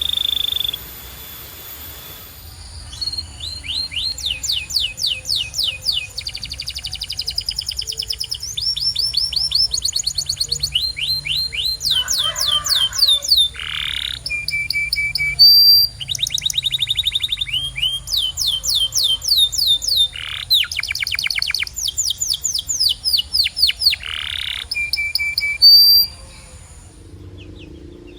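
A canary singing: rapid trills of repeated sweeping notes, each run of notes changing to a new phrase every second or two, with short breaks between phrases.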